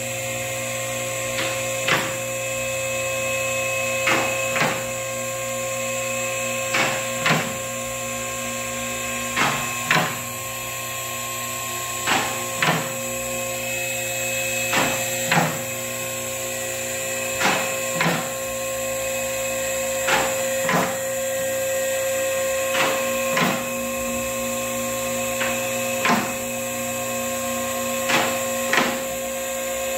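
Electric-hydraulic car lift raising a car: the pump motor hums steadily while the lift's safety locks click into each stop, in pairs about every two and a half seconds.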